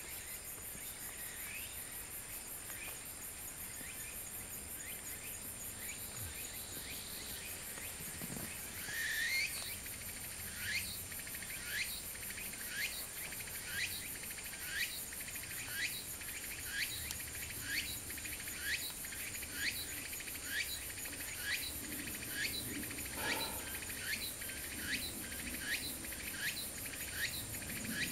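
Woodland insects trilling steadily and high-pitched, joined from about nine seconds in by a short rising chirp repeated about once a second.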